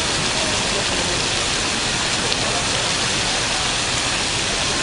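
Programmed water-curtain fountain: many falling streams of water make a steady, even rain-like hiss.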